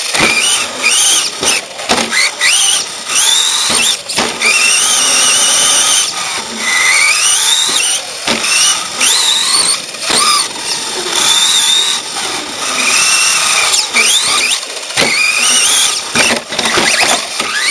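An RC truck's electric motor and drivetrain whining, heard from a camera mounted on the truck. The pitch rises over and over as the throttle comes on and is released around the track, with frequent sharp knocks from the chassis over bumps.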